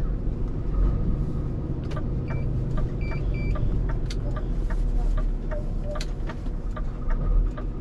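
Scania S500 truck's 13-litre straight-six engine running steadily under way, heard from inside the cab. Scattered light clicks and a few short high electronic beeps about two to three seconds in.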